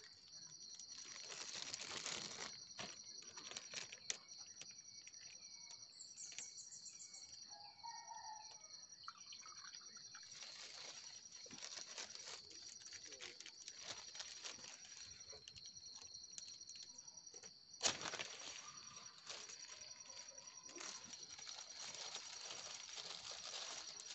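Faint outdoor ambience: a steady, high-pitched, rapidly pulsing chirring with a few short falling bird calls and light rustling. It breaks off for a moment about three-quarters of the way through, then resumes with a sharp click.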